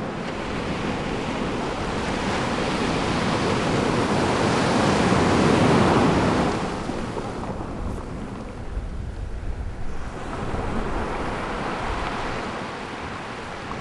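Surf washing onto a beach: one wave builds to a peak about six seconds in and falls away, then a weaker swell follows, with a low wind rumble on the microphone.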